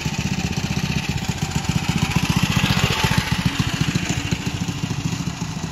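Tillotson 212 single-cylinder four-stroke engine on a minibike running, rising in speed and loudness about two seconds in as the bike pulls away, then easing off slightly as it rides off.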